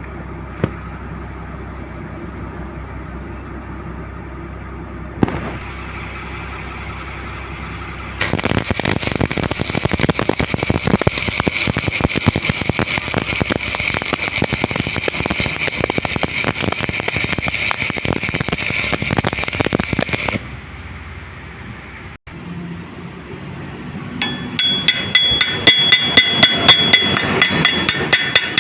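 Electric arc welding: a steady hum, then from about eight seconds in roughly twelve seconds of a dense, steady crackle of the arc, which stops abruptly. Near the end, quick ringing strikes of metal on metal.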